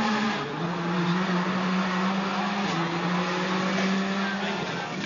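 World Rally Car's turbocharged four-cylinder engine running hard at high revs under acceleration. Its note drops about half a second in, as at a gear change, then holds steady with a slight dip near the middle before fading just before the end.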